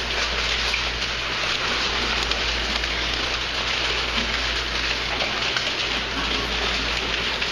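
Eight-week-old piglets making breathy sniffs with their snouts pressed against the camera, heard as a steady, dense rustling noise.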